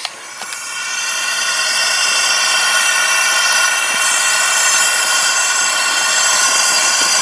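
Homemade propane burner, a copper tube with drilled holes slipped over the gas nozzle, burning steadily with a rushing hiss and a whistling edge. It grows louder over the first couple of seconds, then holds steady.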